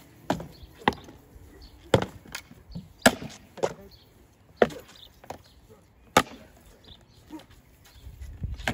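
Spear shafts striking wooden round shields and each other during sparring. Irregular sharp wooden knocks, roughly one or two a second, some louder than others, with short pauses between exchanges.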